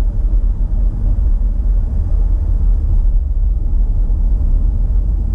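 Steady low road and engine rumble inside a moving car's cabin while driving at road speed.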